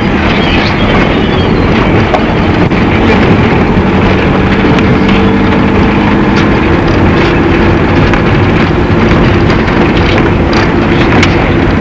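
A vehicle engine running with a steady low drone, with wind noise on the microphone.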